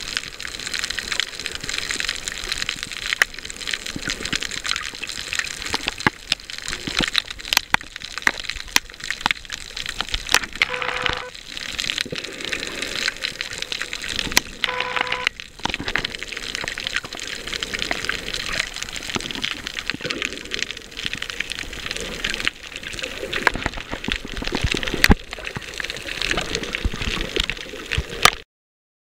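Underwater sound picked up by a snorkeler's camera on a coral reef: a steady watery hiss full of sharp clicks and crackles. Two short low tones come partway through, and the sound cuts off suddenly near the end.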